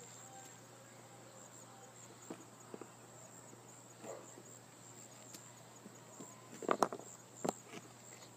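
Insects chirring steadily in a high, even band, with a few soft knocks and a quick clatter of knocks near the end.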